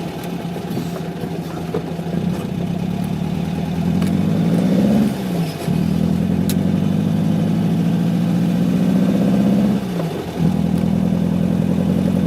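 VW Beetle 1600's air-cooled flat-four engine pulling under acceleration, heard from inside the cabin. Its pitch climbs, drops with a brief lull about five seconds in and again near ten seconds as gears are changed, then climbs again.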